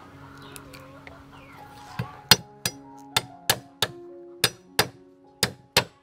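Cleaver striking garlic cloves on a thick wooden chopping block, crushing them: about ten sharp knocks starting about two seconds in, two to three a second. Background music with held notes plays throughout.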